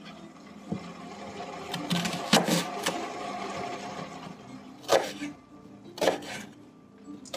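Kitchen knife cutting through an onion and striking a wooden chopping board: a cluster of sharp chops about two to three seconds in, then single cuts about five and six seconds in.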